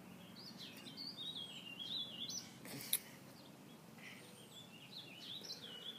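Faint bird song: two warbled phrases of quick high chirps, with a single sharp click about three seconds in.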